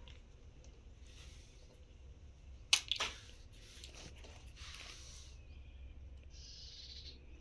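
Faint handling sounds: two sharp clicks close together about three seconds in, then a soft papery rustle near the end as a hand takes hold of a notebook page.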